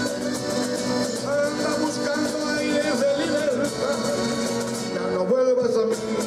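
Latin-style background music with a steady beat.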